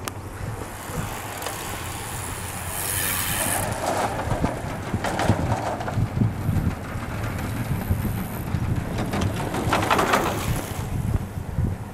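Footsteps of a person walking at a steady pace on a paved path, with bicycles passing close by, the loudest pass about ten seconds in.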